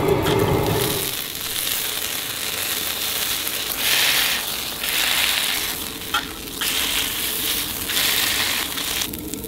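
Squid skewers sizzling in oil on a flat iron griddle while a metal spatula presses them flat, with scraping against the griddle in the first second. The sizzle swells and fades a few times, with a few sharp pops.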